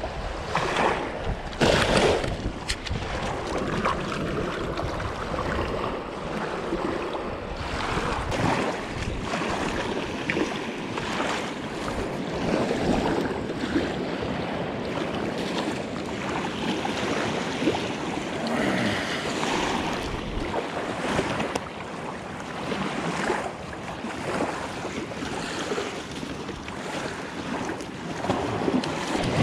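River water lapping and washing onto a sandy shoreline, with wind buffeting the microphone.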